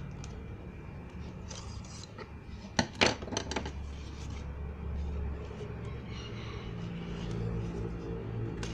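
Hands handling and rubbing a tape-wrapped plastic shipping parcel as it is being opened, with rustling and two sharp clicks about three seconds in.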